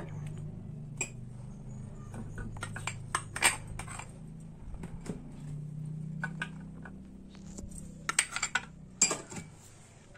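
Scattered clinks and knocks of a spoon and food pieces against a glass bowl as chopped coconut and garlic cloves are tipped in, with a steady low hum underneath.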